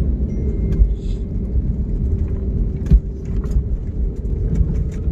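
Steady low rumble and hum inside an airliner cabin on the ground after landing, with scattered small clicks and a single sharp thump about three seconds in.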